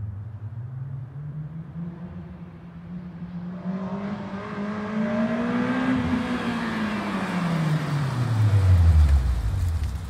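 Honda S2000 four-cylinder through a GReddy Supreme SP stainless dual-muffler cat-back exhaust, accelerating toward the listener. Its engine note climbs steadily to about six seconds in, then the revs fall away as the car draws close, getting louder all the while and loudest just before the end.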